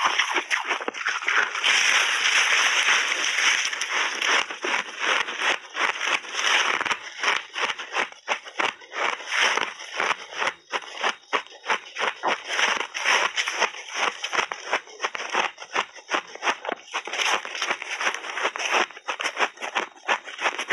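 Crunching and chewing mouthfuls of coloured shaved ice: a dense, continuous crunch for the first few seconds, then many rapid, irregular crackly crunches a second.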